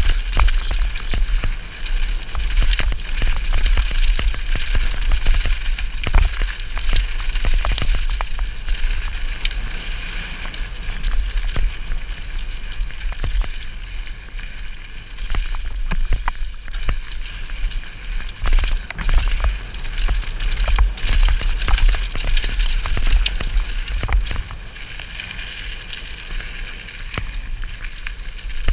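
Mountain bike ridden fast down a rough dirt forest trail, heard from a camera mounted on the bike: a constant rumble of tyres and wind on the microphone, with frequent rattling clicks and knocks from the bike over bumps. It gets somewhat quieter about four seconds before the end.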